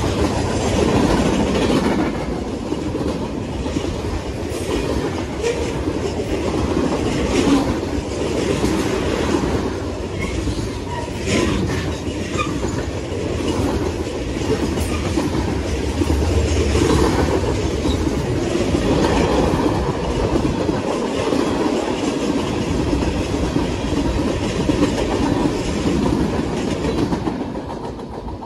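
Freight train cars rolling past close by, with steady wheel-on-rail noise; the sound falls away near the end as the last car pulls off down the track.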